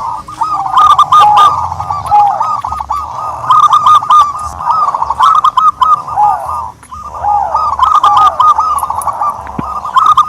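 Turtledoves calling: a steady, dense run of short arched cooing notes, many overlapping, with a brief lull just before the middle.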